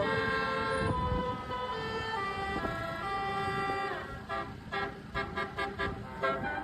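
Basuri 'telolet' multi-tone bus horn playing a melody: held notes stepping from pitch to pitch, then, about four seconds in, a quick run of short staccato notes. A low rumble sits underneath.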